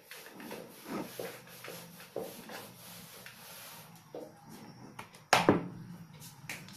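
A duster wiping across a whiteboard in a series of soft strokes, then a single sharp knock about five seconds in, the loudest sound here, followed by a few faint clicks.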